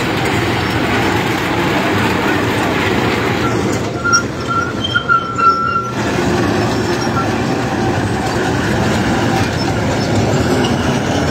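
Hyundai tracked hydraulic excavator's diesel engine running hard under load as it drags a heavy overturned truck, with a high squeal about four seconds in that lasts a couple of seconds.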